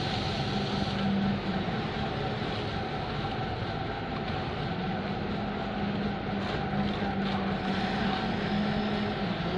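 Diesel engine of a concrete mixer truck running with a steady drone.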